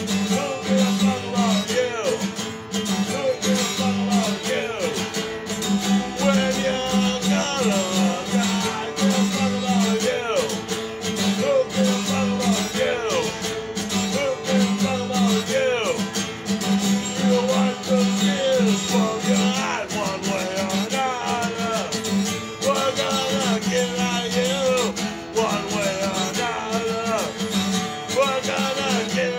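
A man singing while playing an acoustic guitar.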